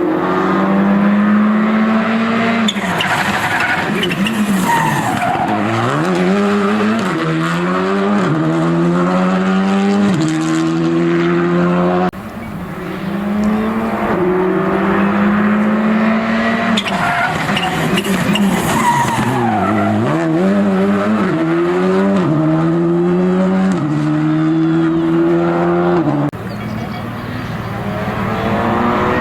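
Rally cars' engines at full throttle on a special stage. Each car holds high revs, brakes and shifts down with the pitch falling and wavering, then accelerates hard up through several gears, each shift a step in pitch. This happens twice, with abrupt cuts about 12 and 26 seconds in.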